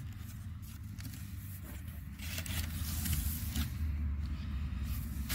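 Cardboard box flaps and crumpled brown packing paper being handled, in short bursts of rustling and scraping that come mostly in the second half, over a steady low rumble.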